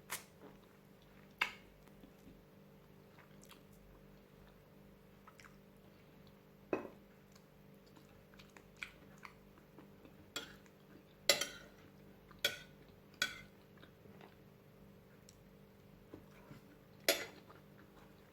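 Cutlery and dishes clinking now and then, about a dozen short separate clinks and taps, the loudest about eleven seconds in, over a faint steady hum.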